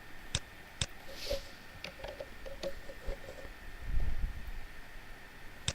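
Computer mouse and keyboard clicks as a value is entered in CAD software: about five sharp, separate clicks, with a brief low rumble about four seconds in.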